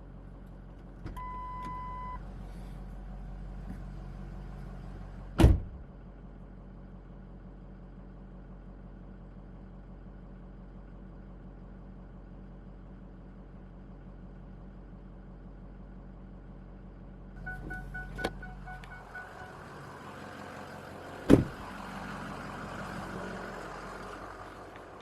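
Inside a vehicle with the engine running: a low steady hum, a short warning chime about a second in, and a door thudding shut about five seconds in. About seventeen seconds in the hum stops and another chime sounds, then a door slams shut and a steady outdoor hiss follows.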